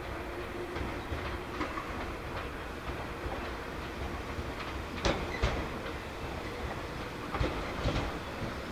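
Meitetsu train running over the station's pointwork, its wheels clattering in an irregular run of clacks over a steady rumble, with the loudest knocks about five seconds in and again a couple of seconds before the end.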